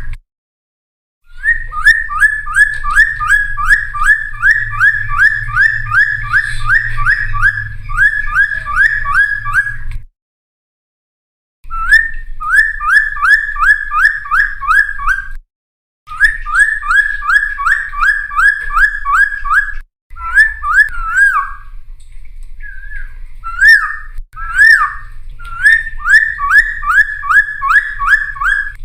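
Cucak timor, a friarbird, singing in full song: rapid strings of loud repeated whistled notes, about three a second, in bouts that break off abruptly into silence. A low hum runs under the song.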